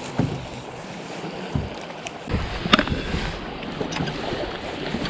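Wind buffeting the microphone and small waves lapping against a bass boat's hull, with a few low thumps and one sharp click about two and a half seconds in.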